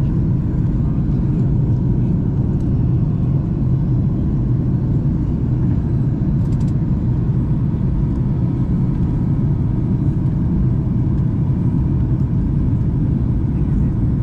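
Steady low drone of a jet airliner heard inside the passenger cabin: engine and airflow noise during the descent.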